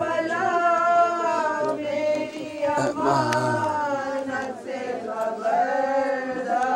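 Men's voices chanting a Muharram mourning lament (noha) without instruments, in long drawn-out notes.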